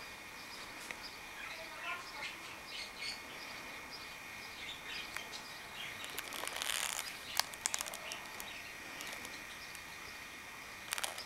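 Small birds chirping in the background over a steady faint high tone, with a brief rustle and a few light clicks about halfway through as the spiral-bound paper album is handled.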